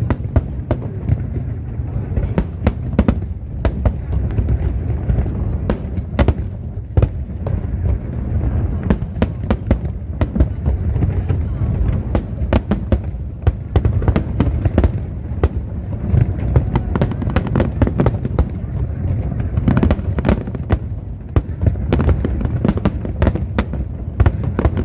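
Aerial fireworks display: a continuous low rumble of booms with rapid, sharp cracks and bangs, several a second.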